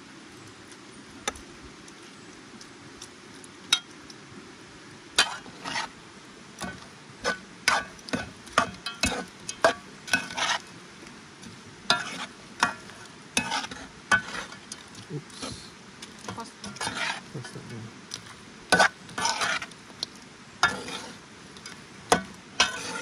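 A utensil scraping and clinking in a pot of crawfish pasta as it is stirred and dished out. A few faint clicks come first, then irregular sharp scrapes and knocks from about five seconds in.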